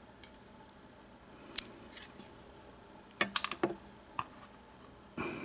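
Small metal clicks and taps of a padlock being taken apart, its pin tumblers and springs handled and tapped out: scattered single clicks, a quick run of about five just past three seconds, and a duller knock near the end.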